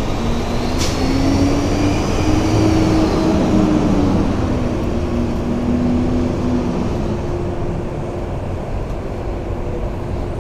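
Steady traffic rumble, with one vehicle passing by: its engine note rises and then falls over several seconds, then settles to a steady hum.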